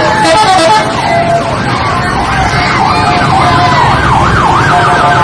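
Telolet bus horn, a multi-tone musical horn, playing a loud warbling, siren-like tune of quickly rising and falling notes.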